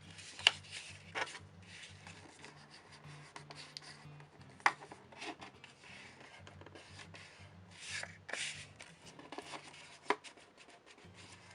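Cardboard tube being creased flat, the fold rubbed down with the smooth plastic barrel of a pen: scratchy rubbing with a few sharp clicks and taps. Soft background music plays underneath.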